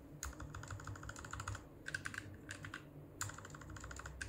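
Fast typing on a JD Jingzao K1 low-profile mechanical keyboard with red linear switches: rapid key clacks in several quick bursts separated by short pauses.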